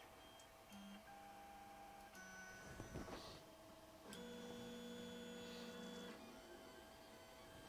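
Creality Ender 3 3D printer's stepper motors whining faintly as the axes move at the start of a print: a few separate moves, each a steady tone at its own pitch, the longest lasting about two seconds.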